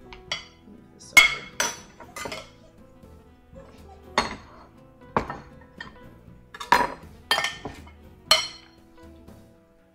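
Metal tongs clinking and scraping against a glass baking dish, about ten sharp, irregular clinks as they grip a roast chicken and dig out its stuffing. The loudest clinks come about a second in and again near the end.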